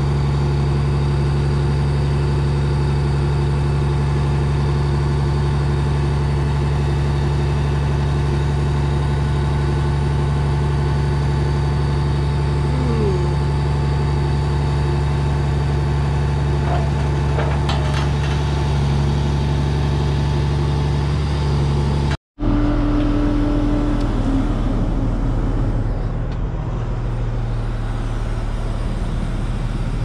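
Diesel engine of a crane truck running steadily at a constant speed. About 22 seconds in the sound cuts out for a moment and comes back as a different, slightly quieter steady engine sound.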